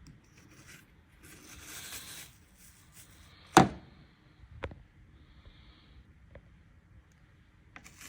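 Handling coffee grounds and the espresso filter: a soft scraping about two seconds in, then a sharp knock and a lighter knock about a second later, with a faint click near the end.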